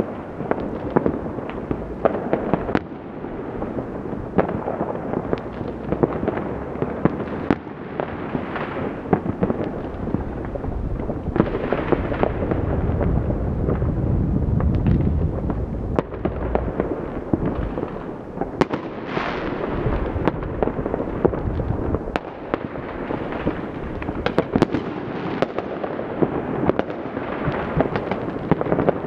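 New Year's fireworks and firecrackers going off all over the city at once: a dense, unbroken crackle of bangs and pops, swelling to a heavier low rumble about halfway through.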